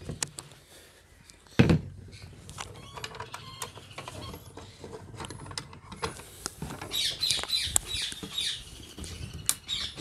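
Wooden beehive frame-assembly jig being taken apart: clicks and knocks as its metal latches are undone and a screwdriver levers off the tight end board, with one louder knock just under two seconds in. Short high squeaks in the last few seconds.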